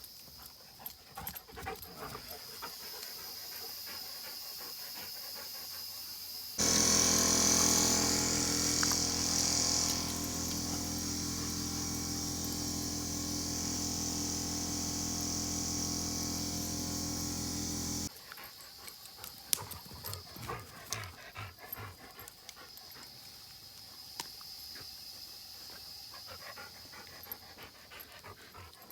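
A husky panting and moving about, with scattered small clicks and rustles. From about a quarter of the way in to just past the middle, a louder, steady machine hum starts and stops abruptly.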